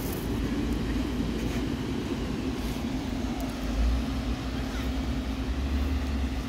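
Steady low rumble with a constant hum and a few faint clicks.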